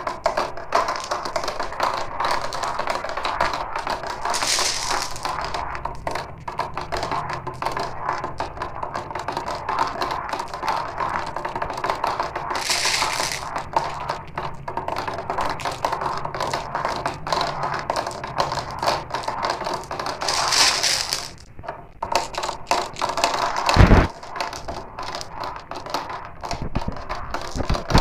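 Marbles rolling down a marble run, a continuous rattle of many small clicks and clacks, with a loud knock about 24 seconds in.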